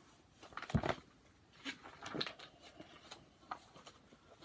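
Paperback picture book being handled and its pages turned: soft paper rustles and light taps, with one louder thump just under a second in.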